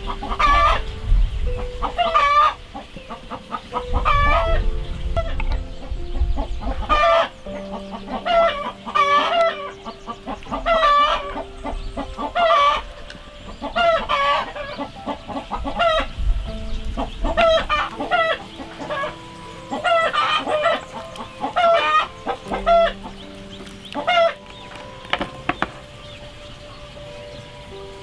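Chickens clucking, one short call every second or two throughout.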